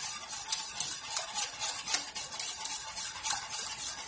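A utensil scraping and clicking against the bottom of a small stainless steel saucepan as a white sauce is stirred while it thickens, in repeated strokes about two to three a second.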